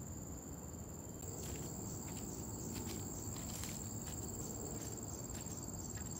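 Steady high-pitched insect drone, stronger from about a second in, with irregular footsteps crunching dry leaves on a forest path.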